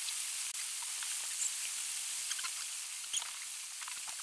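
Steady hiss with faint, scattered squeaks and light ticks of a rag wiping a bare diesel engine block.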